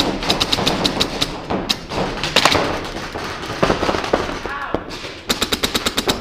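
Paintball markers firing reballs in rapid strings of about a dozen shots a second, in three main bursts with single shots between.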